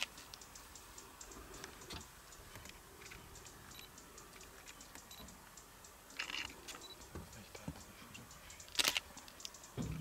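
Faint, scattered small clicks and ticks, with a few louder sharp sounds in the second half.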